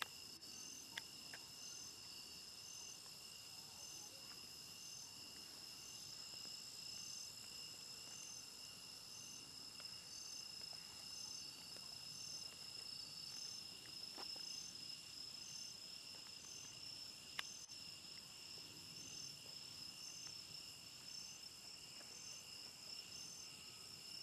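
Night insects trilling steadily: several high unbroken trills, one pulsing at about one chirp a second. A faint sharp pop sounds about a second in and another, the loudest moment, at about seventeen seconds.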